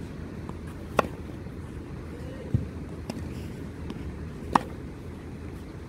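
Tennis ball struck sharply off a racket with a forehand groundstroke, twice: about a second in and again about three and a half seconds later. A dull, lower thud falls between the two hits, over a steady low background noise.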